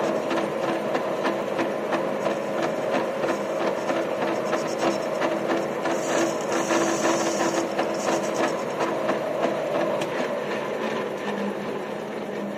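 Centre lathe running, its chuck spinning a metal workpiece while a cutting tool fed by hand on the compound slide, set at 45 degrees, cuts a chamfer on the edge of a step. A steady machine hum with a dense run of fast ticks, easing slightly near the end.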